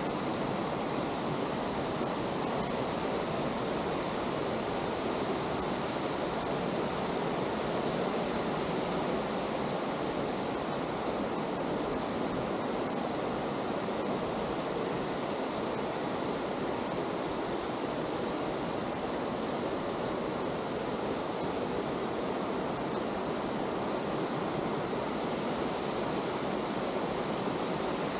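Steady rush of river water pouring over small rocky cascades.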